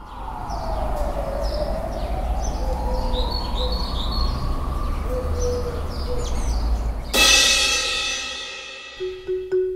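Intro sound design: a low rushing whoosh that slowly dips and rises again, with birds chirping over it. About seven seconds in, a sudden bright chime crashes and rings out, and a few soft tuned notes begin near the end.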